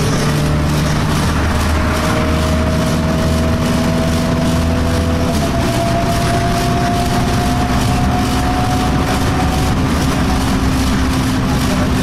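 Inside an Alexander Dennis Enviro200 single-deck bus under way: the engine and drivetrain run with the annoying vibration sound heard in the cabin. A whine rises slowly as the bus gathers speed, and the engine note steps down about five seconds in, as at a gear change.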